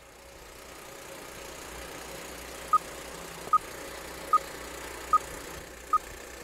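Vintage film-countdown leader sound effect: a steady film-projector whir with a short beep about every 0.8 seconds, five beeps in all, starting a little before halfway.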